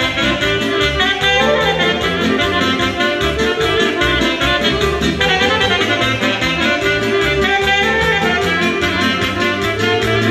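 Live Romanian hora dance music played by a wedding band: saxophone carrying the melody over accordion, with a steady, even beat.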